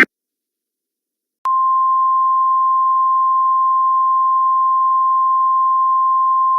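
A single steady electronic alert tone at one pitch, just above 1000 Hz, sounded as the attention signal of an Emergency Alert System broadcast. It begins about a second and a half in and holds without change.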